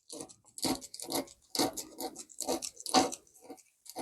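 A run of irregular light clicks and scrapes, about a dozen short sounds of small hard objects being handled and knocked together.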